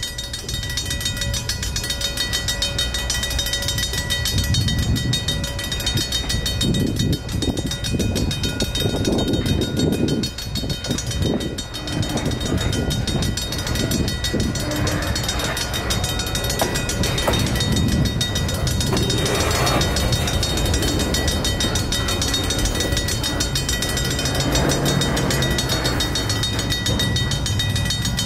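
Two RACO mechanical crossing bells ringing steadily with fast, even strokes while the crossing signals are active, over a low rumble that swells and fades as the EMD GP60 diesel locomotive approaches. The train reaches the crossing near the end.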